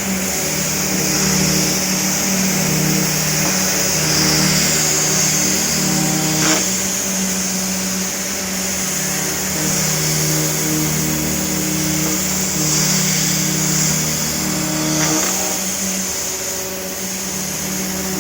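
CNC router running as it machines a plastic sheet: a steady high hiss with low motor tones that shift between two pitches every second or two as the machine moves.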